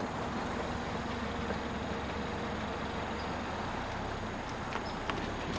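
Car engine running, heard from inside the car: a steady low hum with road or ambient noise and a few light clicks near the end.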